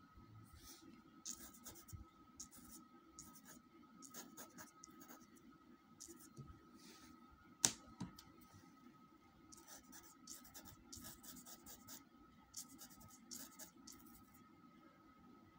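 Pencil point scratching on paper in quick, short, irregular strokes, faint throughout, as small texture marks are drawn. One sharp tap about halfway through.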